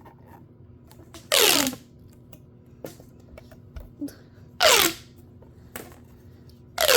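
Plastic pop tubes stretched and squeezed, giving three loud rattling whooshes about a second and a half to three seconds apart, each falling in pitch, with small plastic clicks between.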